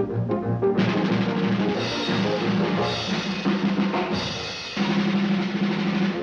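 Cartoon score music: a drum beat under sustained low notes, with a crash about once a second.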